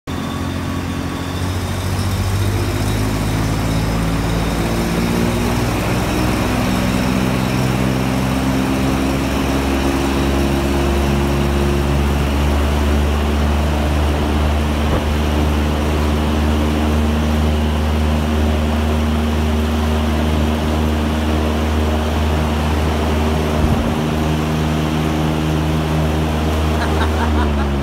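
A powerful fan or wind machine runs steadily, blowing hard on an open umbrella. Its motor drone climbs in pitch over the first few seconds and dips at the very end, under a continuous rush of wind.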